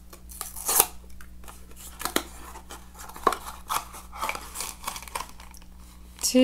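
Cardboard and wrapper packaging of a small surprise box being opened by hand: a run of small clicks, snips and crinkles, with a louder rustle just under a second in.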